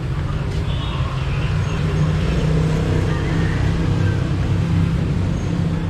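Street traffic, with a motor vehicle's engine running close by as a steady low hum.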